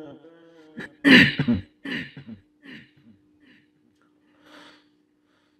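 A man clears his throat with a rough cough about a second in, followed by a few softer breaths and throat noises. A faint steady hum runs underneath.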